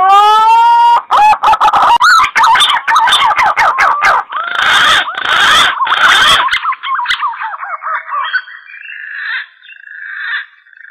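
Green pigeon (punai) call used as a hunting lure: a loud rising whistle, then a long run of wavering, warbling whistled notes that trail off into softer broken notes near the end. Sharp clicks and crackle run through the loudest part.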